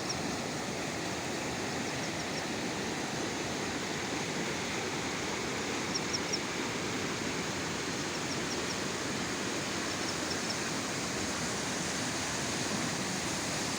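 Rain-swollen river rushing steadily in flood. Small groups of short, high chirps come through it every two seconds or so.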